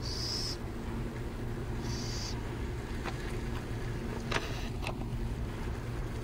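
Burrowing owls giving two raspy hissing calls, each about half a second long and about two seconds apart, over a steady low rumble. A sharp click comes a little over four seconds in.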